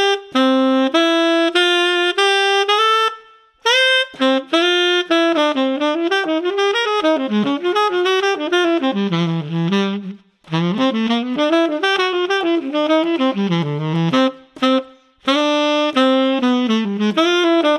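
Tenor saxophone fitted with a BetterSax Burnin' mouthpiece playing a single jazz melody line. The phrases are broken by three short breath pauses, at about three and a half, ten and fifteen seconds in.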